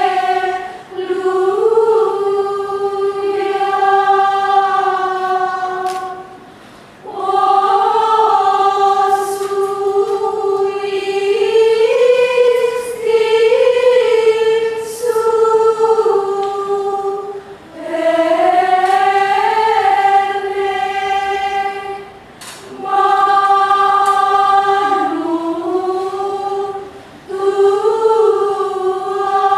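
Women's choir singing Gregorian chant a cappella in unison, in long phrases broken by short pauses for breath.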